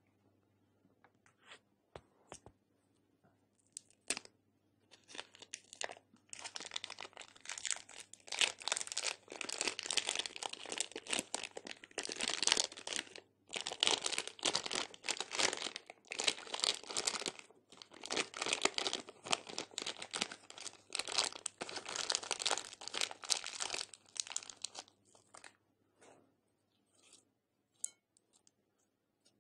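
Clear plastic piping bag crinkling and tearing as it is peeled off a lump of slime: a dense crackling that starts about six seconds in and stops a few seconds before the end, with scattered faint clicks of handling before and after.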